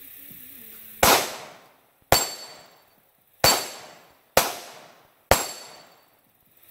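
Five pistol shots about a second apart. The last four are each followed by a short high ring: the round striking an AR500 steel target plate.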